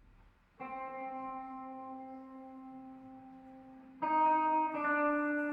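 Intro music of held chords: one comes in about half a second in and slowly fades, then a louder chord enters about four seconds in and changes again shortly before the end.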